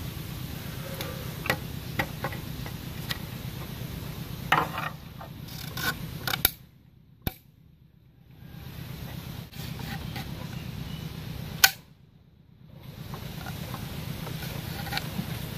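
Light clicks and knocks of bamboo sticks being handled and fitted together, over a steady low hum. The sound cuts out briefly twice, each time near a sharper single click.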